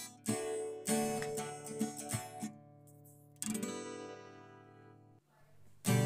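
Background music: a guitar tune with strummed chords through the first half. A chord is then left to ring and fade away, and the strumming comes back in near the end.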